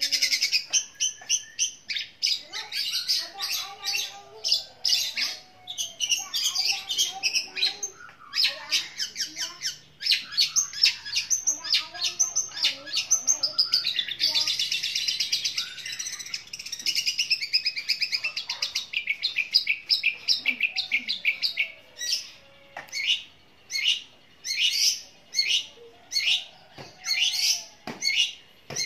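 Long-tailed shrike (cendet) singing long, loud runs of rapid high chirps, including sparrow-like chirps that mimic the Eurasian tree sparrow. The notes come in dense unbroken strings for most of the time, then break into separate short phrases about one or two a second in the last third.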